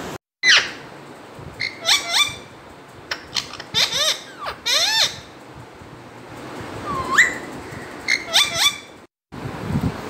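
Alexandrine parakeet calling: a run of short, shrill calls and squawks whose pitch swoops up and down, several in quick succession, with one rising call about seven seconds in.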